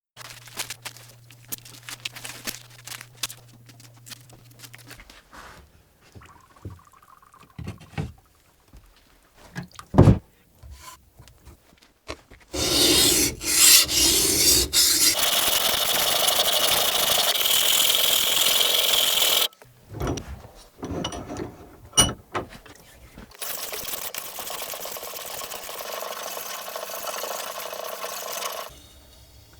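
Blade-finishing shop work: scattered taps and knocks, one sharp knock about ten seconds in, then two long spells of steady abrasive rubbing or grinding on the blade, about seven and five seconds long.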